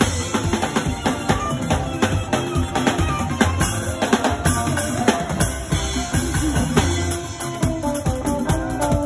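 Live praise band playing: a drum kit drives a dense beat of drum and cymbal strikes over keyboard and guitar.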